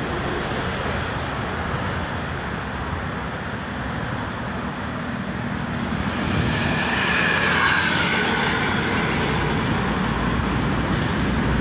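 Road traffic noise: vehicle engines and tyres running on a road, growing somewhat louder a little past the middle.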